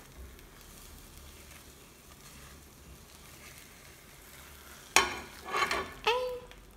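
Faint, steady sizzle of scrambled eggs frying in oil in a pan, with a silicone spatula stirring. About five seconds in, a sudden loud knock followed by louder scraping and clatter as the half-set eggs are scooped out of the pan.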